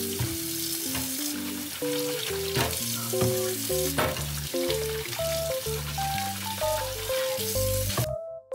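Water from a kitchen faucet running into a stainless steel sink as bottles are rinsed under it, with a few sharp knocks. Gentle keyboard background music plays over it. The running water cuts off suddenly near the end.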